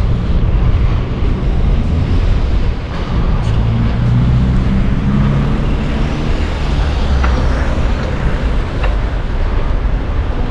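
Steady wind rumble on a bike-mounted camera's microphone while cycling, mixed with passing car traffic; an engine hum comes up about four seconds in.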